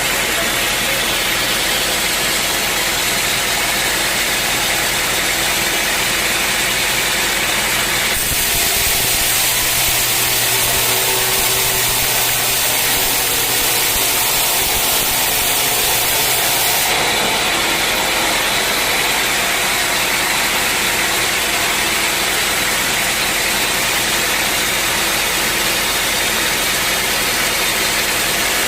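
Sawmill machinery running with a loud, steady mechanical noise. Its tone changes, getting hissier, from about eight seconds in until about seventeen seconds in.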